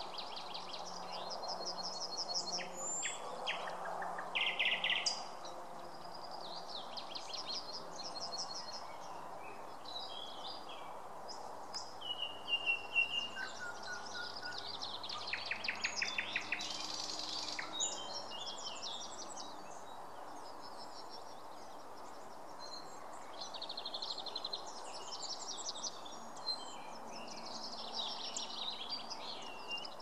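Dawn-chorus-style spring birdsong: several songbirds singing at once, with overlapping high trills, rapid repeated notes and short whistles. A steady background hiss runs underneath.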